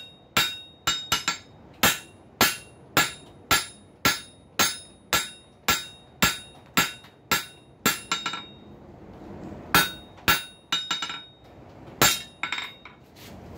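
Ball-peen hammer striking hot steel flat stock on an anvil, about two blows a second, each with a bright ringing tone. The steel bar is being drawn narrower. The blows pause a little past eight seconds in, then resume less evenly, with a few lighter taps between heavy blows.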